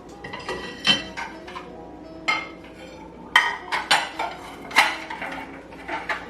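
Cooking utensils clinking against pots and dishes: about seven sharp, ringing clinks at irregular intervals.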